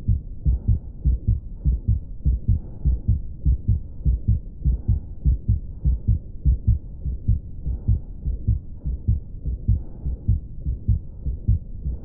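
Stethoscope recording of a child's heart: a fast, regular heartbeat with a murmur filling the gaps between the beats.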